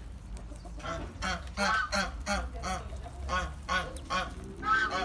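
Muscovy duck hen and her ducklings calling: a run of short, repeated calls, two to three a second, with a brief pause around the middle.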